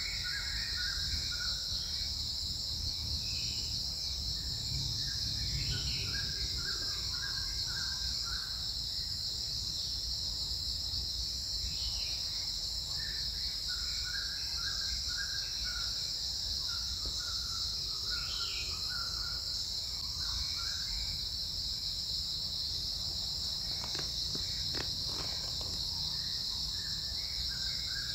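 Steady high-pitched insect chorus of crickets or cicadas, unbroken throughout, with scattered short chirps at a lower pitch and a few sharp clicks near the end.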